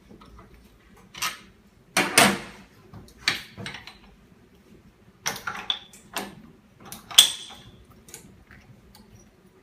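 A series of sharp metallic clicks and clunks, loudest about two seconds in and again about seven seconds in, as the pressure-chamber door of an OCA laminator / de-bubble machine is unlatched and opened once its pressure has dropped to zero.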